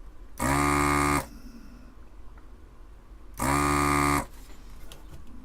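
Electric desoldering tool's vacuum pump buzzing in two short bursts about three seconds apart, sucking molten solder off the capacitor's two leads in turn.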